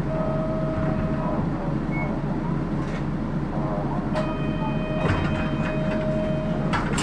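City bus engine idling while the bus stands still, heard from inside as a steady low hum. A steady electronic tone sounds twice over it: briefly at the start, then for about two and a half seconds from about four seconds in.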